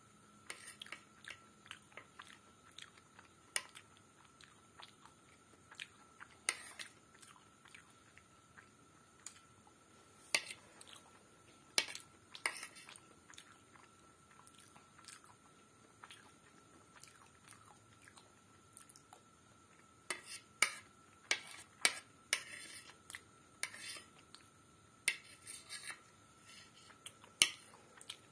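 Close-up chewing and mouth sounds of someone eating pasta, with scattered short clicks and scrapes of a metal spoon against a plate, coming thicker in the later part.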